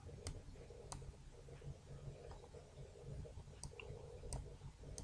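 A few faint, sharp computer mouse clicks, spaced irregularly, over a low steady hum of background noise.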